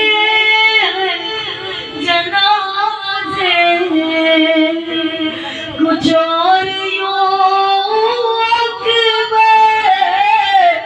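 A single high voice chanting a mourning lament, unaccompanied, in long, drawn-out wavering notes with a few short pauses.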